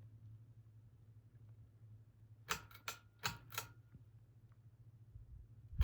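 Westinghouse ceiling fan running on its low speed: a steady low motor hum. About two and a half seconds in there is a short run of sharp clicks with a faint metallic ring, and a louder click comes right at the end.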